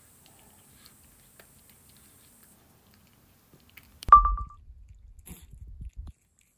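A cat chewing and licking treats from a hand, heard as faint wet clicks. About four seconds in comes a sudden knock with a brief ringing beep, followed by a couple of seconds of low rumbling.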